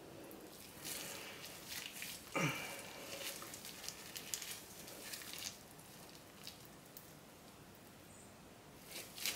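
Faint rustling and squelching of a plastic piping bag being squeezed as cold-process soap frosting is piped out, with one short falling squelch about two and a half seconds in.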